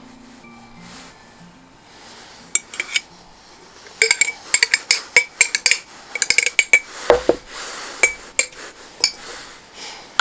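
A metal fork clinking against a glass jar and an enamel tray as food is packed into the jar. A few clicks come about two and a half seconds in, then quick repeated clinks from about four seconds in, with one duller knock in the middle of them.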